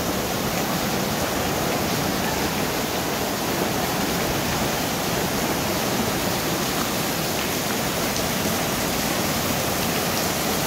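Steady rush of a swollen, muddy river in flood after heavy rain, the fast water churning white around a concrete bridge pier.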